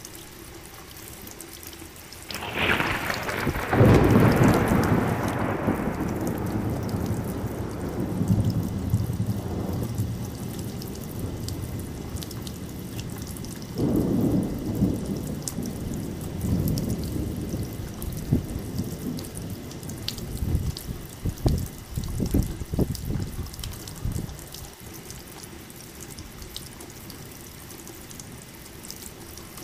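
Steady rain falling, with a thunderclap about two and a half seconds in that rolls on into a long, slowly fading rumble. A second roll of thunder comes around the middle, and a few shorter, sharper cracks of thunder follow later.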